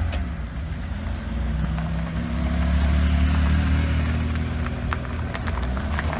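Car engine running while driving, its pitch rising a little about two seconds in, over road noise, with a few light ticks near the end.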